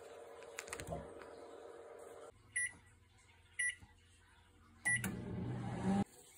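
Microwave oven keypad beeping three times, about a second apart, as buttons are pressed, then the oven running with a loud low hum for about a second before it cuts off.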